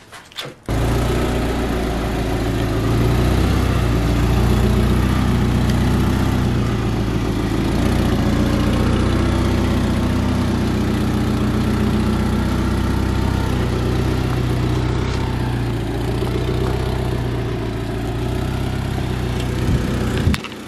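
Second-generation Mitsubishi Eclipse's four-cylinder engine running steadily, the car rolling off near the end.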